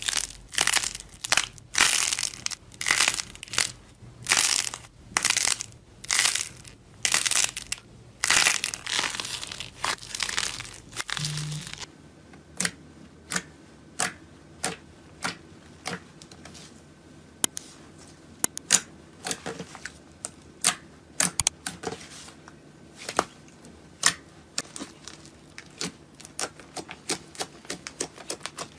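Slime being squeezed and pressed: a noisy squish about every three-quarters of a second. About twelve seconds in it changes to scattered short, sharp clicks and pops.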